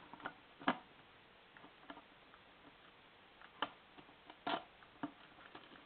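About six faint, scattered clicks and knocks from the latch of a locked Remington portable typewriter case being tried, the locked latch not releasing.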